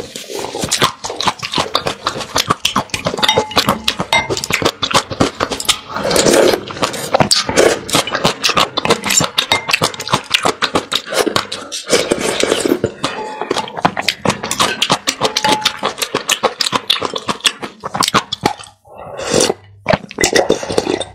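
Close-miked eating: wet mouth clicks, slurping and chewing of spoonfuls of soup. Near the end she drinks the broth from the bowl with a few loud slurps and gulps.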